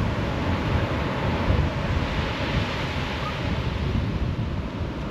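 Small waves breaking and washing up a sandy beach in a steady surf noise, with gusts of wind buffeting the microphone.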